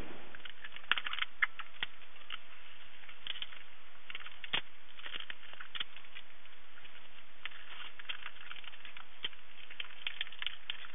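Light, irregular clicks and taps of a strap band clamp being fitted and tightened around a wooden stave barrel, over a faint steady hum.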